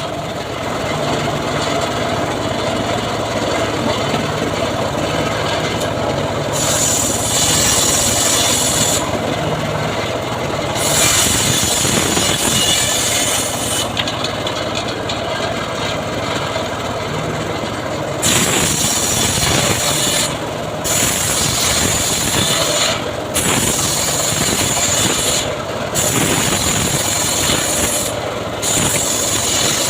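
Homemade band sawmill sawing sengon timber: its motor drones steadily while the blade's hiss through the wood comes and goes in stretches of two to three seconds.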